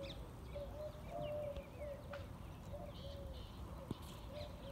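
A dove cooing: a long run of short, soft notes repeated over and over, with small birds chirping higher above it. One brief sharp tap sounds near the end.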